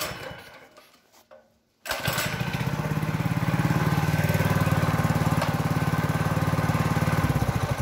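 Minibike's Predator 212cc single-cylinder engine starting about two seconds in, running steadily for about five seconds, then cutting out abruptly as the freshly repaired kill switch shuts it off.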